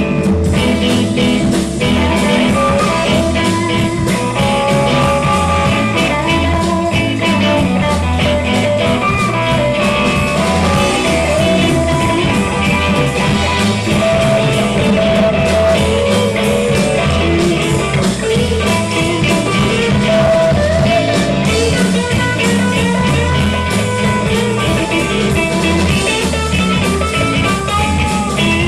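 Live blues-rock band playing: electric guitar over a second guitar and a drum kit, with a lead line of bent notes.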